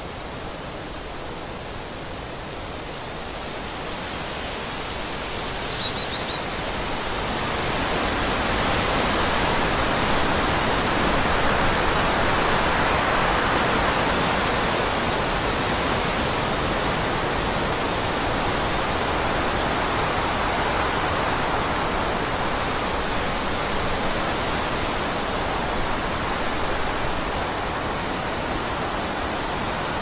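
Forest ambience: a steady rushing hiss that swells a few seconds in and then holds, with two brief high bird chirps near the start.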